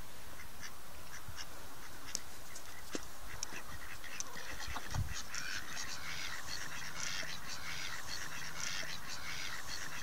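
A flock of ducks quacking and chattering over a steady hiss, the calls growing thick and continuous about halfway through.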